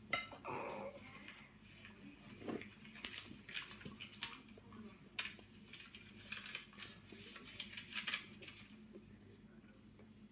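A tortilla chip being bitten and chewed close to the microphone: a run of short, crisp crunches that thins out near the end.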